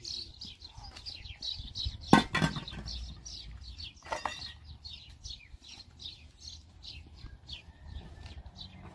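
Small birds chirping in rapid, repeated notes throughout. A sharp clatter of dishes about two seconds in, the loudest sound, and a lighter clink just after four seconds.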